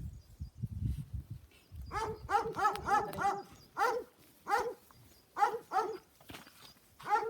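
Puppy yapping: short high barks in quick runs, starting about two seconds in after a few low thumps.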